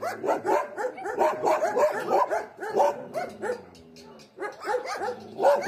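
Dogs barking at people walking past: a quick, overlapping run of barks, a short lull about three and a half seconds in, then barking again.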